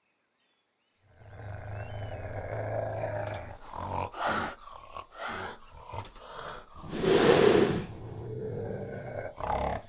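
Cheetah growling: a steady low growl begins about a second in, breaks into short rough growls, and a loud snarl comes about seven seconds in.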